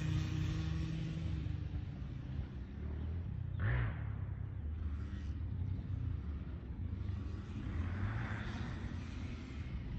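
2004 KTM 50 mini dirt bike's small two-stroke single-cylinder engine running as it is ridden, its revs wavering up and down, with a brief louder burst a little under four seconds in.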